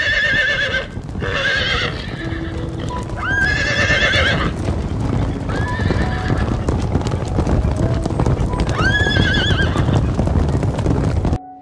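A herd of horses moving over hard dirt: a dense, steady clatter of many hoofbeats, with loud whinnies rising over it about five times. It all cuts off shortly before the end.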